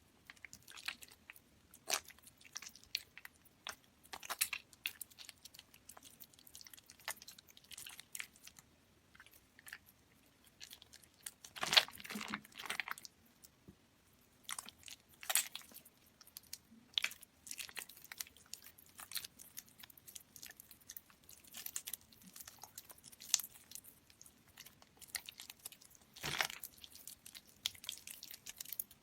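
Soaked, softened bar soap being squeezed and crushed by hand: irregular crackling clicks, some soft and some louder, with the loudest bursts about twelve seconds in and again near the end.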